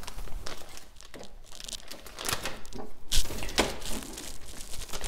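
Clear plastic bag of connector plugs crinkling as it is handled, in irregular rustling bursts, loudest about three seconds in.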